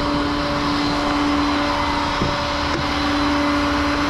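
Vehicle engine running steadily: a constant hum over an even rushing noise, with no revving.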